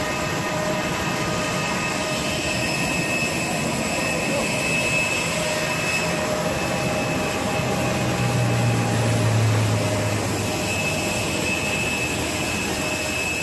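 Jet aircraft turbine noise: a steady even roar with a thin high whine over it, and a low hum that swells for a few seconds about two-thirds of the way through.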